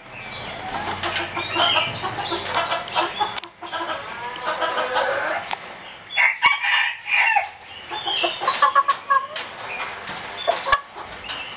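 Tân Châu chickens clucking over and over in short, broken calls, with one longer crow-like call a little before the middle.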